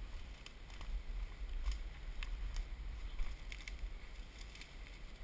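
Footsteps crunching and rustling through dry leaf litter and twigs, in irregular short crackles, over a steady low rumble on the microphone.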